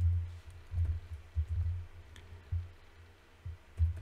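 Irregular soft taps and low thuds of a computer keyboard and mouse as figures are entered into a calculator, about six in all, with short pauses between them.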